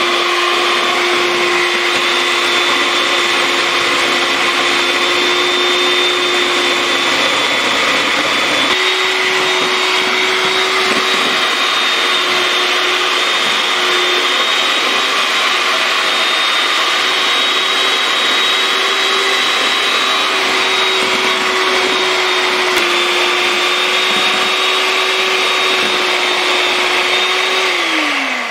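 Electric hand mixer running steadily, its beaters whipping instant coffee, sugar and water into dalgona foam in a stainless steel bowl. The motor hum glides down and stops near the end as the mixer is switched off.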